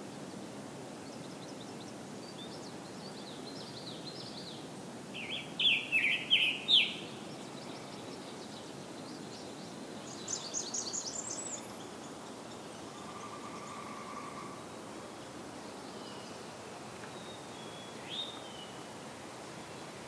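Scarlet tanager singing a quick run of short phrases about five seconds in, the loudest sounds here. Other songbirds give fainter notes around it, including a high run of notes about ten seconds in, over a steady outdoor hiss.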